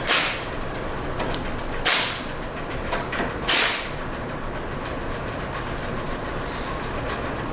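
Wrench tightening a tie rod end's castle nut in three short rasping strokes, about two seconds apart, bringing the nut's slot in line with the cotter pin hole. A steady background hiss runs underneath.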